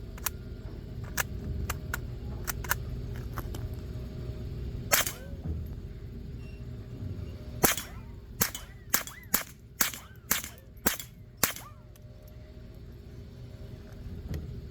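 A string of rifle shots: a few light cracks in the first seconds, one louder shot about five seconds in, then about seven shots in quick succession. Several are followed by a faint curving whine of bullets ricocheting off into the distance, which sounds like a cartoon ricochet effect.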